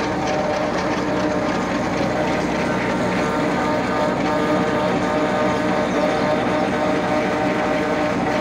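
Farm tractor's diesel engine running steadily at a constant speed.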